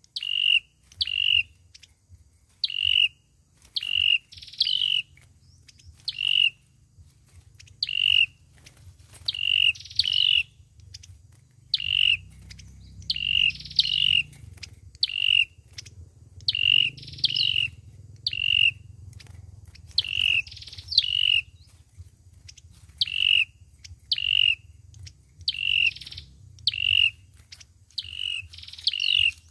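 Sâu dừa bird calling: short, sharp, high chip notes, mostly in pairs and repeated about every second, some with a quick upward flick. This is the bird's lure call, used to draw others of its kind.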